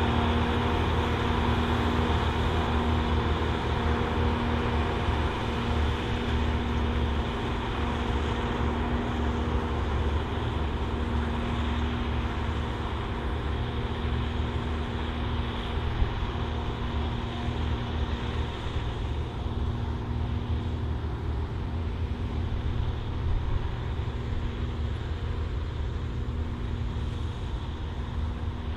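Large farm tractor engine running steadily under load, pulling a field cultivator; it slowly grows fainter as the tractor moves off. A single sharp click about sixteen seconds in.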